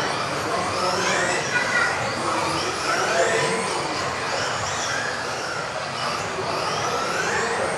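Several electric RC off-road racing cars whining around the track at once, their motors rising in pitch again and again as they accelerate out of the corners.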